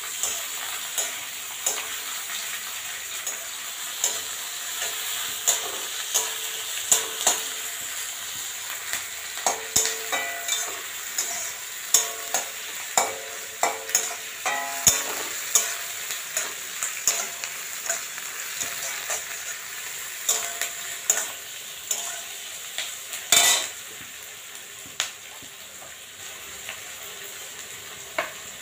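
Food sizzling as it fries in a steel kadai, with a metal spatula scraping and knocking against the pan in quick, irregular strokes. One louder knock comes about three-quarters of the way through.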